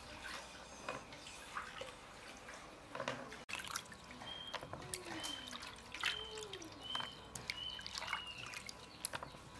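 Water splashing and dripping as chicken blood curds are rinsed by hand in a steel basin, with scattered small splashes and drips.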